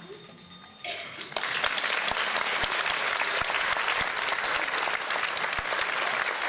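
Audience applauding, the clapping swelling in about a second in after a brief high ringing tone, then going on steadily.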